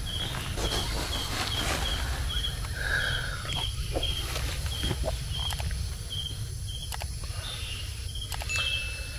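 An insect chirping steadily, short high chirps about twice a second, over a low rumble.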